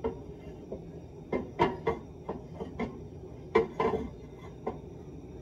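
Kitchen utensils and a pan knocking and clinking: a string of about ten separate knocks, each with a short ringing, the loudest about a second and a half and three and a half seconds in.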